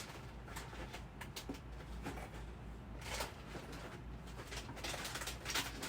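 Rustling and light knocks of small items being handled and searched through, several short bursts over a low steady hum.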